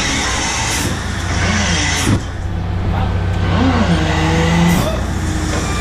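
Steady low drone of a shrimp trawler's diesel engine and deck machinery as the net bag is hoisted, with wavering tones and a sharp knock about two seconds in.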